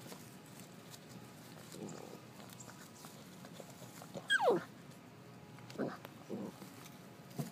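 Labrador puppy giving one sharp, high yelp that slides steeply down in pitch, followed by a few short, lower yips near the end.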